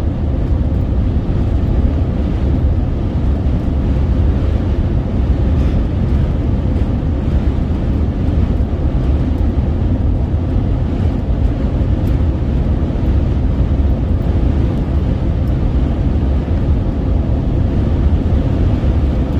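Steady low rumble of road and wind noise inside a vehicle's cabin, driving at highway speed through a strong windstorm. It holds even, with no distinct knocks or changes.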